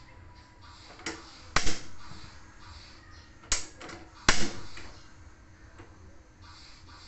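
Gas stove burner knob being turned and its igniter clicking, in two goes about three seconds apart. Each go is a lighter click and then a louder snap with a short rushing tail.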